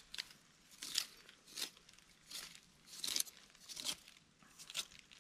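Knife cutting chunks off a freshly dug wild yam (Dioscorea hispida) tuber: a series of crisp crunching strokes, roughly every half second.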